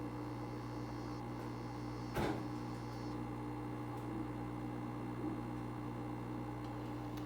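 Steady, buzzing hum from an aquarium, of the kind a male African dwarf frog makes when singing. One short, sharp knock comes about two seconds in.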